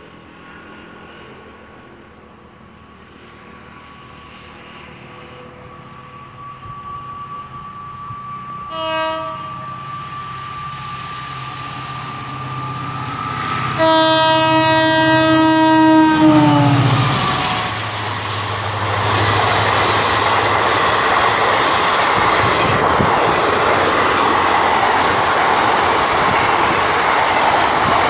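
WDP4 diesel locomotive approaching: its engine drone grows louder, a short horn toot sounds about nine seconds in, then a long horn blast from about fourteen seconds whose pitch drops at the end as the locomotive passes. The passenger coaches then roll by with a loud, steady rush of wheels on rails.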